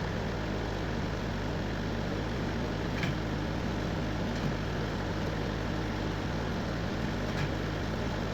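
An engine running steadily at a constant speed, a low even hum with no revving or load changes, with a few faint clicks.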